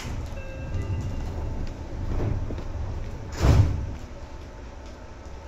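Inside a Seibu 2000 series electric commuter car standing just before moving off: a sharp click at the start, a low rumble with a few faint steady tones, and a loud, brief thud about three and a half seconds in.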